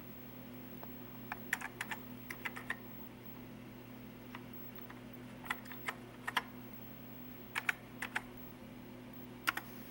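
Keystrokes on a Commodore SX-64's keyboard: several short runs of clicky key presses with pauses between them, over a steady low hum.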